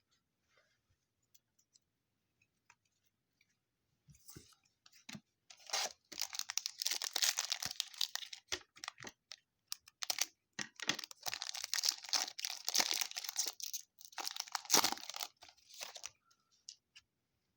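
Trading-card pack wrapper being torn open and crumpled by hand, in several crackling stretches that start about four seconds in and stop a little before the end.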